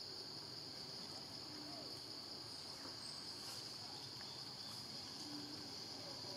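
A steady, high-pitched chorus of insects droning in forest. Two faint short calls come through, one about a second and a half in and one past five seconds.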